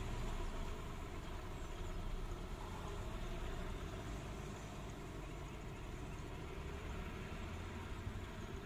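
Vehicle engines idling, a steady low rumble.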